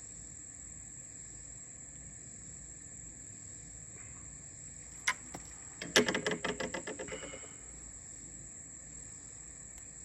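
Steady, high-pitched chorus of insects. About five seconds in comes a single sharp click, and a second later a burst of rapid rattling clicks, about ten a second, fading out within a second and a half while a small fish is handled and unhooked.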